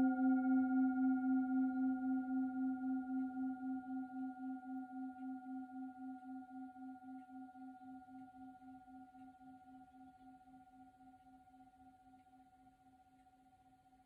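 Tibetan singing bowl tuned to C, ringing with a slow wavering pulse of about three beats a second and fading steadily to a faint hum.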